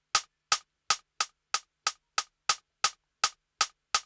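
A rim shot sample played in Native Instruments Maschine through its MPC 60 emulation and a saturator, struck again and again from a pad: a run of short, sharp clicks, about three a second.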